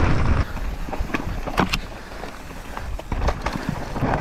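Mountain bike riding down a dirt trail: wind rushing on the microphone for about the first half second, then tyre noise on dirt with scattered sharp clacks and rattles from the bike.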